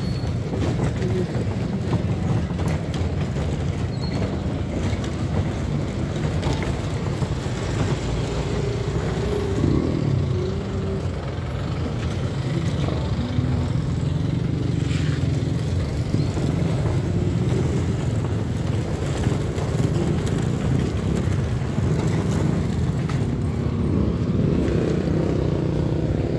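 Street traffic: cars driving past close by with their engines running, a steady low noise throughout.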